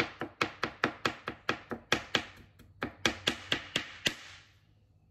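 Kitchen knife chopping peeled aloe vera gel into thin strips on a plastic cutting board. The blade knocks the board in quick, even strokes, about four to five a second, with a brief pause just past halfway, and stops about four seconds in.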